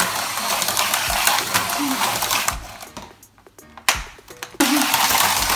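Toy remote-control car's small electric motor whirring as it runs inside a plastic tube track. It stops for about two seconds past the middle, with a single click, then starts whirring again.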